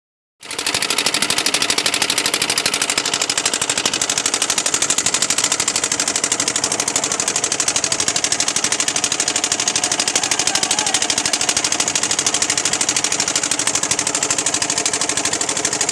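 Boat engine running steadily under way, with a fast, even chugging beat.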